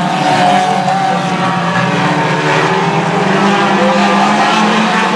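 Several four-cylinder stock race car engines running hard together around a short oval, a dense overlapping drone whose pitch wavers as the cars lift and get back on the throttle.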